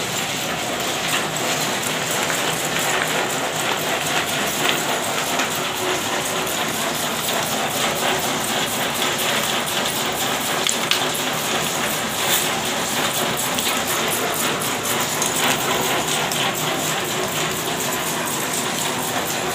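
Candlenut-cracking machine running: a steady, dense rattle of nuts and shells clattering, with cracked candlenuts pouring from its chute into a plastic basket.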